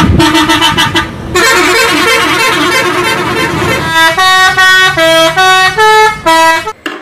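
Musical multi-tone bus horns ('telolet' horns) on tour buses playing tunes. The first half is a quick warbling run of tones. From about halfway it becomes a clear melody of separate horn notes, about three a second, which stops abruptly near the end.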